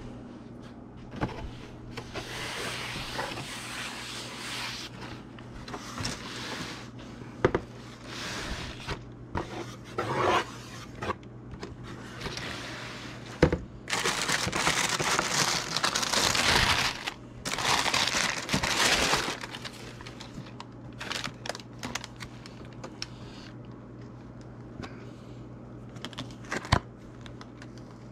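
A cardboard shoebox being opened and its tissue-paper wrapping rustled and crinkled by hand, in several long stretches, with scattered knocks and scrapes of cardboard. A steady low hum runs underneath.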